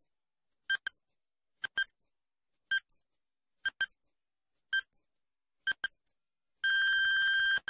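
Quiz countdown timer sound effect: a short electronic beep about once a second, some of them in quick pairs, then a long steady beep of about a second near the end as the countdown runs out.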